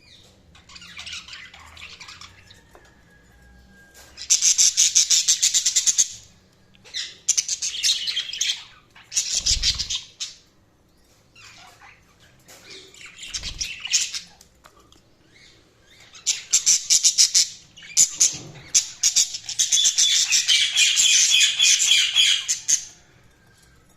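Budgerigars chattering and chirping in bouts, fast rapid-fire warbles broken by short pauses, with louder stretches about four seconds in and again towards the end.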